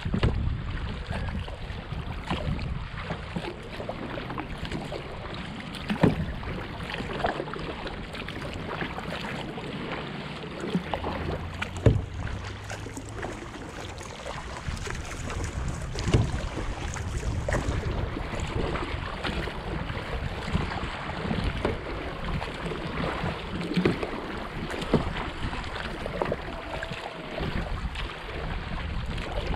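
Kayak paddling on open water: paddle strokes and water sloshing, with wind buffeting the microphone as a steady low rumble. A few sharp knocks stand out.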